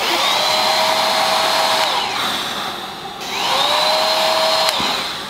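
Handheld hair dryer blowing, switched on twice with about a second's pause between. Each time the motor's whine rises as it spins up, holds steady over the rush of air, then falls away as it winds down.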